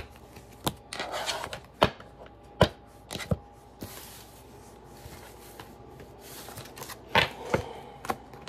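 Tarot cards being gathered off a wooden desk and shuffled: papery swishes of cards sliding together, broken by several sharp taps of the cards on the desk.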